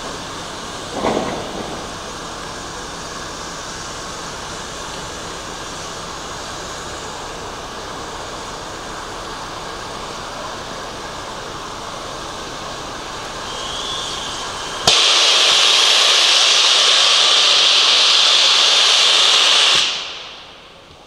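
Steam locomotive: a steady background rumble with a brief sharp sound about a second in, then a loud hiss of escaping steam that starts abruptly about fifteen seconds in, holds for about five seconds and dies away.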